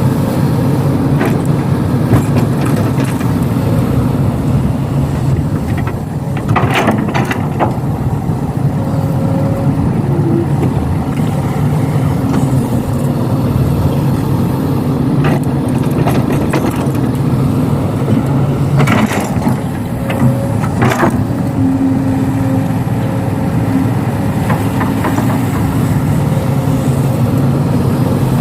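Diesel engine of a Kobelco SK200 hydraulic excavator running steadily under load while it loads soil into a dump truck. A few sharp clanks and rattles stand out: one about a quarter of the way in, and two close together about two-thirds of the way through.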